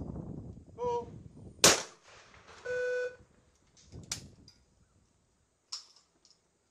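Over-under trap shotgun fired once about a second and a half in, a sharp, loud report. About a second later comes a short steady electronic beep, then a second, quieter shot about four seconds in.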